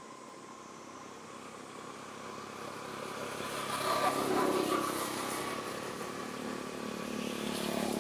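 A motor vehicle's engine passing, growing louder to a peak about four seconds in, easing off, then rising again near the end.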